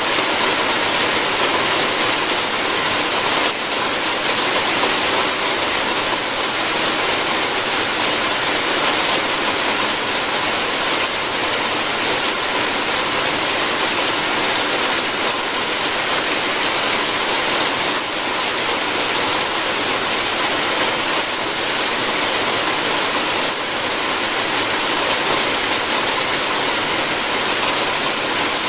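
Steady rain falling on a roof, an even patter without pauses.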